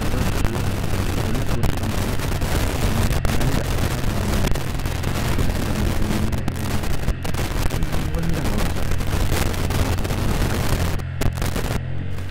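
Loud, crackling wind and rain noise on the microphone of a motorcycle-mounted action camera, over the steady low drone of a Yamaha Vixion's single-cylinder engine running.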